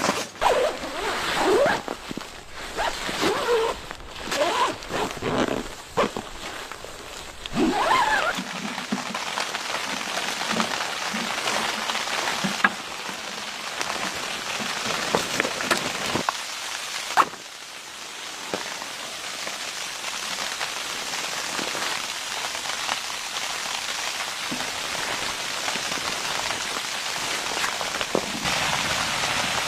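Steady pattering hiss like precipitation striking a surface, with a few sharp ticks; the first several seconds are more uneven, with some faint gliding tones.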